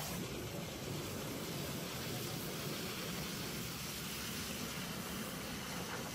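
Pressure-washer jet blasting hot water into a plastic tub of water, churning it into froth: a steady rushing hiss of spray and bubbling water.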